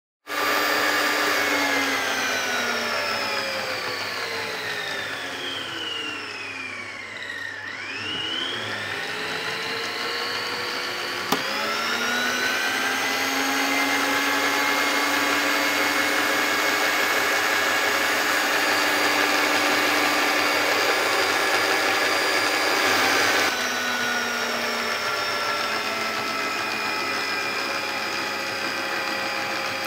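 Hoover Automix 8924 food mixer's electric motor running with a whine. Its pitch falls steadily for the first several seconds, then climbs back up as it changes speed. A sharp click comes about eleven seconds in, and the whine steps down a little about two-thirds of the way through.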